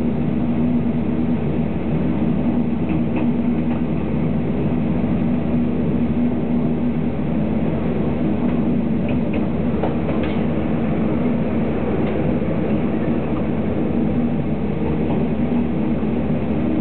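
Steady running noise heard inside the carriage of a Taiwan Railway Tze-Chiang limited express pulling out of the station, with a low steady hum and a few faint ticks from the wheels.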